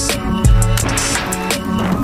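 Backing music with a drum-kit beat and bass drum hits under sustained instrumental tones.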